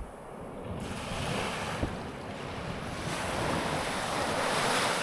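Surf washing onto a sandy beach, the hiss of the wave building and growing louder toward the end.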